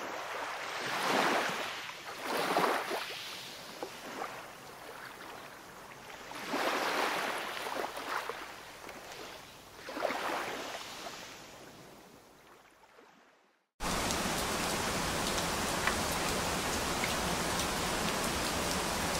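Ocean waves surging and washing back in four swells, fading out to silence. Then steady rain cuts in abruptly about fourteen seconds in.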